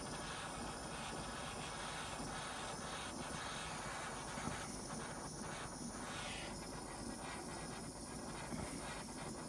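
Gas torch flame burning with a steady hiss, heating a brass paint tray so the solder flows into its joints.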